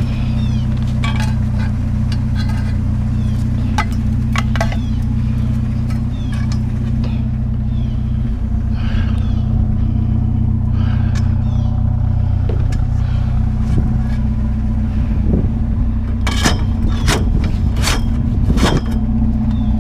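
Truck engine idling steadily, with scattered knocks and clanks of scrap being handled and a louder run of clattering near the end.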